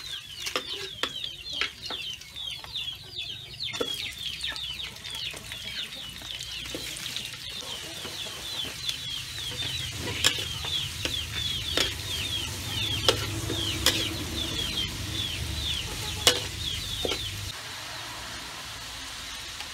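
Metal spatula stirring and scraping onion and carrot sizzling in oil in a wok, with a few sharp clinks of the spatula against the pan. A rapid high chirping runs through most of it. The stirring stops near the end.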